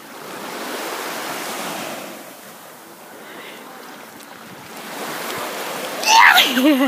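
Small sea waves washing up on a sandy beach in two soft swells, with some wind on the microphone. Near the end a sudden loud rush of splashing and a child's brief wavering cry.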